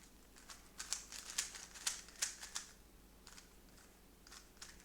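3x3 speed cube being turned by hand during a solve: quick runs of sharp clicks from the layers snapping into place, a dense flurry in the first half and a few more turns near the end.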